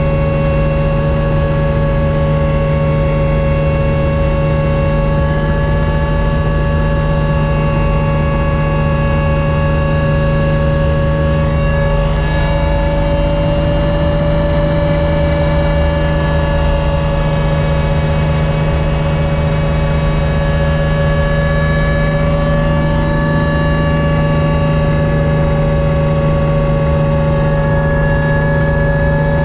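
Helicopter cabin noise in flight: a steady, loud drone of engine and rotor, made of a low hum with several steady whining tones above it. The tones shift slightly in pitch about twelve seconds in.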